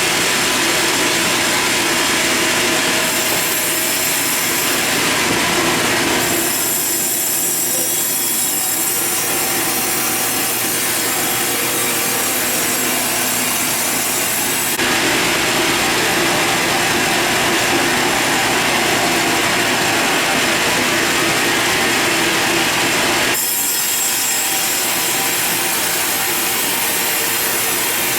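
Sawmill saw cutting lengthwise through a large log: a steady rasping whir over a faint steady hum, its sound changing abruptly three times.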